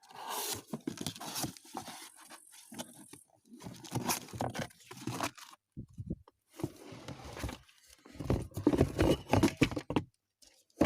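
Packaging being opened by hand: cardboard and wrapping tearing, rustling and crinkling as a new front suspension strut is unboxed, with irregular handling knocks, heaviest near the end.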